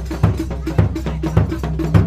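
Traditional Indonesian procession music played on drums and percussion: a heavy low beat about twice a second, with sharp clicking strokes between the beats.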